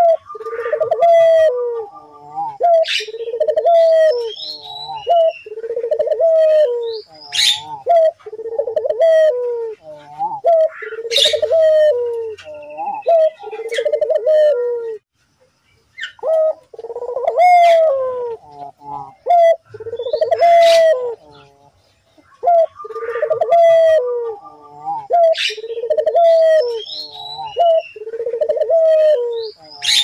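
Barbary dove (ringneck dove, 'puter') cooing in long runs of repeated rolling coos, with a short break about halfway.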